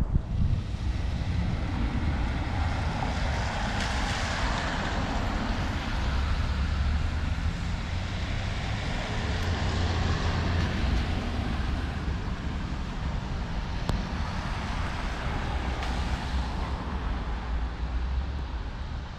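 Cars passing on a wet, slushy street: tyre hiss swells and fades about three times, over a steady low rumble.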